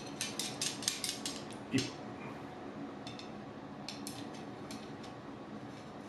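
Metal campfire-tripod pole sections clinking and clicking as they are handled and joined into one leg: a quick run of light clicks with a duller knock in the first two seconds, then a few more clicks about four seconds in.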